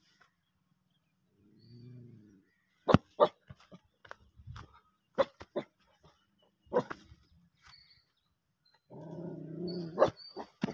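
A dog barking in short, sharp barks, with a low growl about two seconds in and a longer growl near the end.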